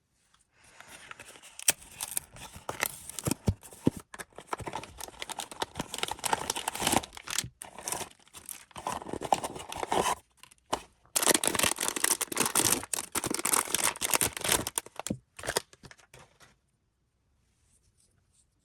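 Blind-box packaging being torn open and crinkled by hand, with crackling tearing and rustling in bursts. It pauses twice and stops about sixteen seconds in.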